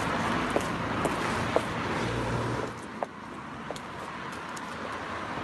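Steady road traffic noise that drops off a little under three seconds in, with a few sharp taps of heeled boots walking on brick paving.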